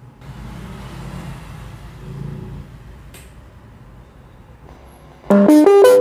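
Faint low background hum with a single click about three seconds in. Then, about five seconds in, a loud electronic chime, a quick run of notes, sounds from a Digicon DS-2025 digital school bell timer through its amplifier and loudspeaker: the alert tone that comes before a recorded period announcement.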